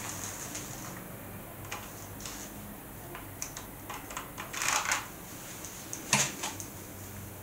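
Relays clicking inside the RudiStor RP2000 vacuum-tube headphone amplifier during its start-up check: scattered light clicks, a louder cluster of clicks a little past halfway and a sharp click about six seconds in, over a faint low hum.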